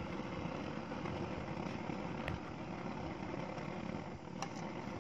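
A large aluminium pot boiling hard on a gas burner: a steady low rumble of flame and bubbling, with a faint click of the metal ladle against the pot about two seconds in and again near the end.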